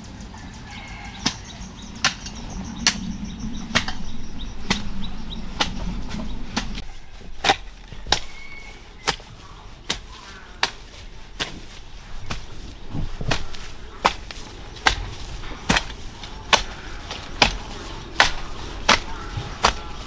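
A garden hoe chopping into soil, struck again and again at a steady pace of about one stroke a second.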